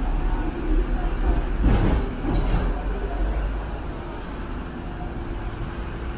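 Hong Kong double-decker electric tram running on its rails, heard from aboard: a steady low rumble with a couple of short clatters about two seconds in, after which it runs quieter.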